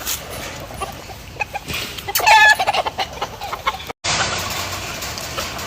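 A flock of chickens clucking, with one loud, sharp call about two seconds in and scattered short clicks. The sound cuts out completely for a moment just before four seconds in.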